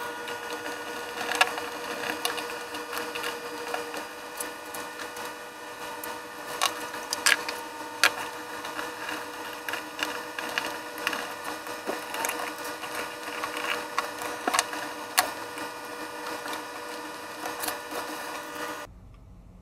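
Handling and fitting a bench power supply's heatsink board and metal chassis back together: irregular clicks and knocks of metal and plastic parts over a steady hum. The sound drops away abruptly just before the end.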